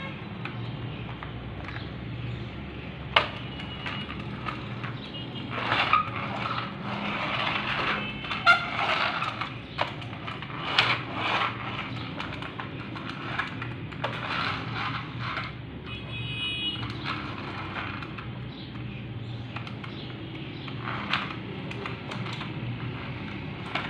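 Plastic toy pickup truck pushed back and forth by hand across a hard tabletop: its wheels rolling and rattling in uneven stretches, with a few sharp knocks and clicks, over a steady low hum.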